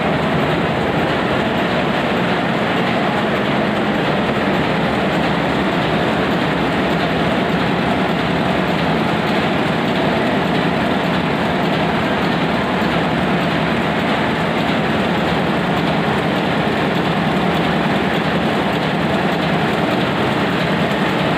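Hanshin marine diesel engine running steadily at a constant speed, a loud, even mechanical clatter with no change.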